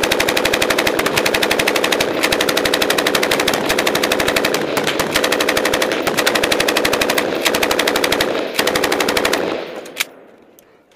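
Belt-fed machine gun firing long, nearly continuous bursts at close range, broken by a few very short pauses, for about nine and a half seconds before it stops; about half a second later comes one more sharp single shot.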